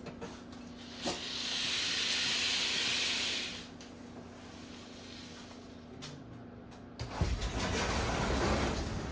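Curtains pulled open along their rod with a long swish lasting a couple of seconds. About seven seconds in, a sliding glass door opens with a few knocks, and a steady rumble of wind and surf comes in from the balcony.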